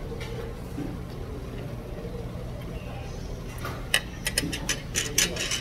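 Metal chopsticks and spoon clinking against bowls in a quick run of light clicks in the last couple of seconds, over a steady low background hum.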